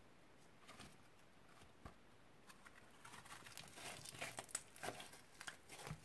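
Thick slime being stretched and squeezed by hand: faint sticky crackles and pops, sparse at first, then a dense crackling run over the last three seconds as it is balled up in the fist.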